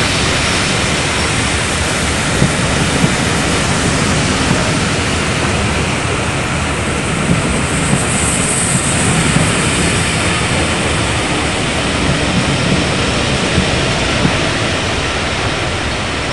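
LMS Stanier Class 5 steam locomotive 45407 pulling a train of coaches away, a steady rushing noise of steam and carriages rolling past. There is a brief high hiss about eight seconds in.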